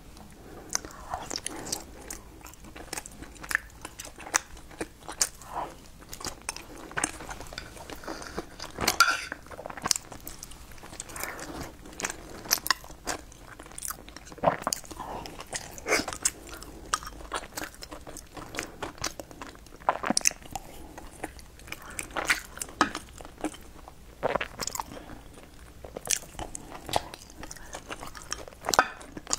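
Close-miked eating: a person biting and chewing filled buns, with wet mouth noises and frequent short, sharp clicks.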